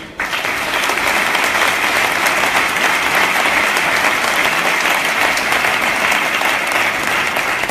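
A large seated audience applauding steadily, starting abruptly just after the start and dying away near the end.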